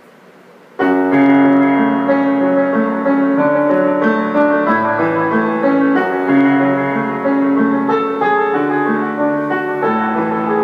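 Piano intro to a hip-hop instrumental: it starts about a second in with sustained chords that change every second or so.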